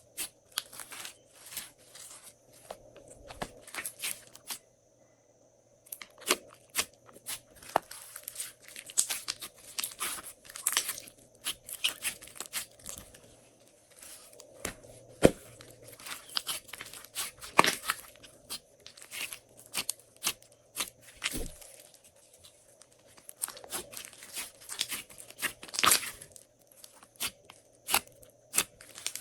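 Glossy slime being squeezed, stretched and folded by hand, giving irregular sticky clicks, pops and crackles, with a brief pause about five seconds in.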